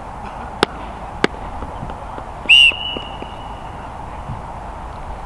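Referee's whistle, one short blast, signalling that the penalty kick can be taken, with a thin fainter tone trailing on for about a second. Two sharp clicks come before it, over steady open-air background noise.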